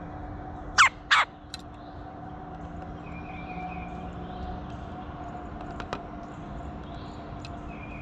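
Red-bellied woodpecker at close range giving two short, loud, harsh call notes about a second in, a few tenths of a second apart. Faint chirping of other birds repeats in the background.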